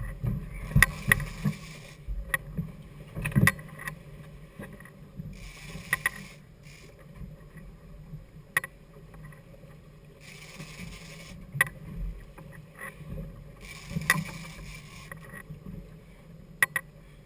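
Twin outboard motors running steadily at low speed with a low hum. Recurring bursts of hiss of about a second each come every few seconds, among scattered clicks and knocks.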